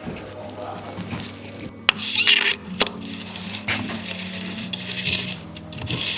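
Bike crank and chainring parts being handled and fitted by hand: scattered light metal clicks and rubbing, with a short scraping hiss about two seconds in.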